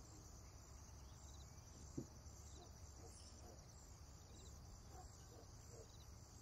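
Near silence: room tone with a faint, even, high chirping and one soft tap about two seconds in.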